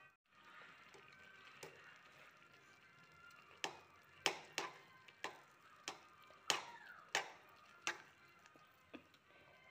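Steel slotted spoon clinking and scraping against a metal kadhai while stirring grated carrot halwa. About a third of the way in, sharp irregular clicks begin, about ten in all, over a low steady hiss.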